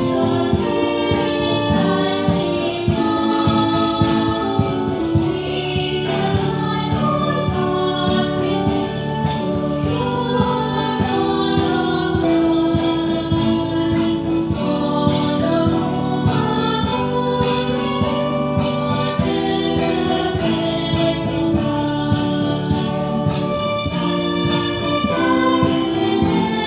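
Choir singing a devotional hymn in English, with instrumental accompaniment and a steady beat.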